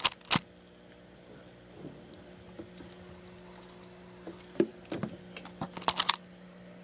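Black plastic aquarium hood being handled and lifted open: sharp clicks and knocks, two at the start and a quick cluster about six seconds in, over a steady low hum.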